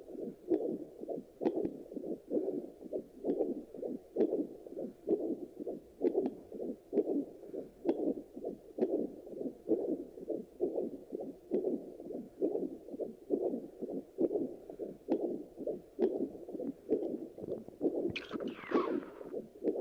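Handheld fetal Doppler on the abdomen after delivery, its speaker giving a regular pulsing whoosh of blood flow; with the baby already born, the beat is the mother's own. A brief scraping rustle sounds near the end.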